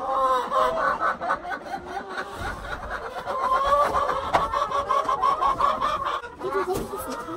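A flock of laying hens clucking, many short calls overlapping without a break.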